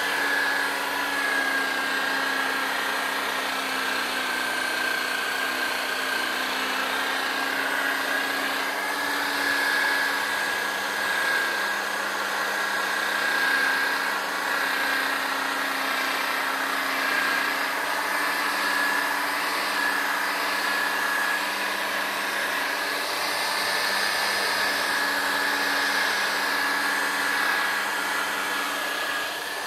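Handheld electric rotary polisher running with a foam pad pressed on a yellowed plastic headlight lens, buffing off the oxidized top layer. A steady high whine over a lower motor hum, swelling slightly in level now and then.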